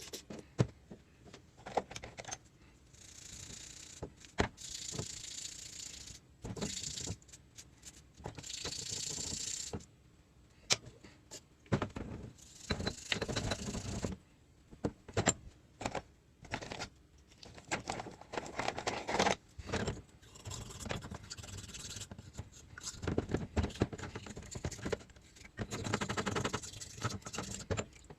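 Metal engine parts and tools being handled during a workshop check of the oil pump: irregular clicks, knocks and scrapes, with a few longer stretches of hiss.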